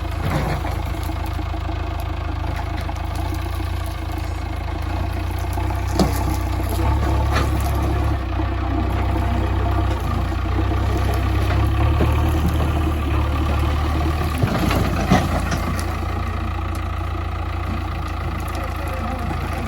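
JCB 3DX backhoe loader's diesel engine running steadily, with a few sharp knocks, about six and seven seconds in and again around fifteen seconds.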